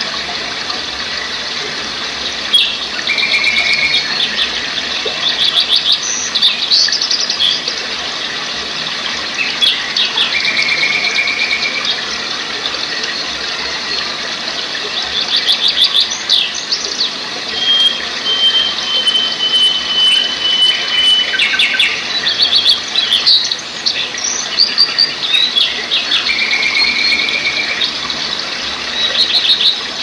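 Songbirds singing over the steady rush of a stream cascading over rocks. Clear whistles about a second long recur several times, mixed with quick trilled phrases, and midway one long thin whistle holds for about three seconds, falling slightly.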